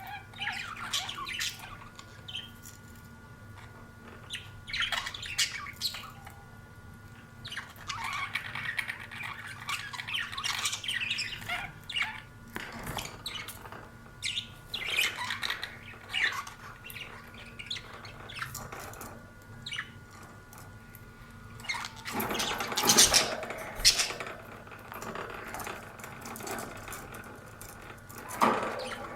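Several budgerigars chirping and chattering in irregular bursts, with a louder, busier burst of squawking about three quarters of the way through.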